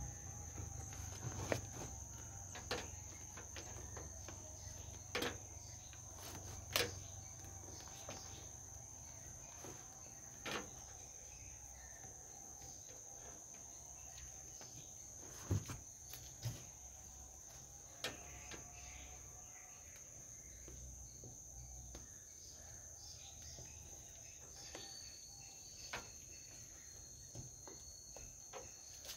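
Scattered clicks and light knocks as rubber beading is pressed by hand into the metal edge of a three-wheeler's rear window opening. Under them runs a steady high-pitched insect drone.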